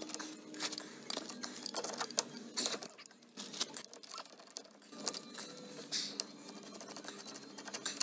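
Irregular metallic clinks, clicks and scrapes of a pipe wrench and metal tools handled against steel pipe fittings, as a leaking hot-water joint is worked on to tighten it.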